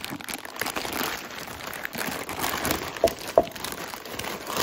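Thin plastic bag crinkling and rustling as it is untied and peeled back by hand, with two louder, sharper crackles about three seconds in.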